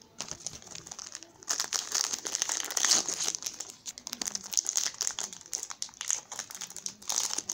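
Foil wrapper of a Pokémon Sun & Moon Burning Shadows booster pack crinkling and crackling as it is handled and torn open by hand. The dense crackle gets louder about a second and a half in.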